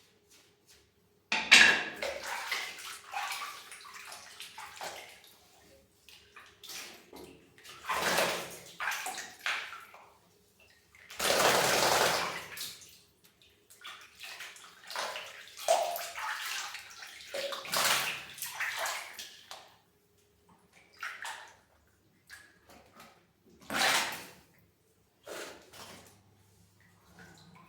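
Water running and splashing in irregular bursts while a cat is being washed, the longest burst about two seconds long near the middle.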